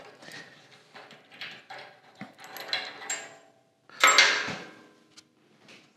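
Small clicks and scrapes of a hex key loosening a bolt on a steel frame jig, with a louder scrape about four seconds in.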